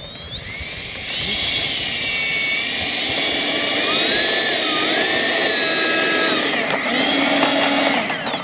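Freewing Avanti 80 mm electric ducted-fan jet's fan whining as the model taxis on grass. The throttle comes up about a second in, the pitch slides up and down in the middle, and the fan spools down near the end as the jet stops.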